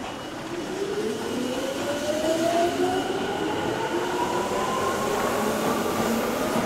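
Tokyu 8500 series field-chopper-controlled electric train pulling away: its traction motors give a whine that climbs steadily in pitch while the running noise grows louder as it gathers speed.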